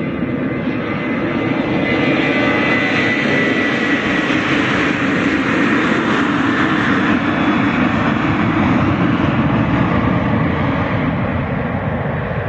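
Jet airliner's engines passing close by: the roar swells over the first couple of seconds, holds, and eases near the end, with a high whine that falls slightly in pitch early on.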